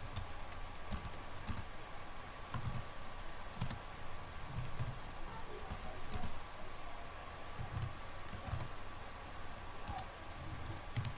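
Computer keyboard keys being pressed in short, scattered bursts of typing, each press a light click.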